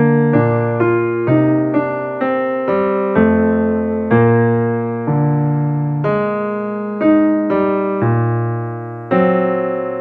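Background piano music: slow notes and chords, each struck and left to fade before the next.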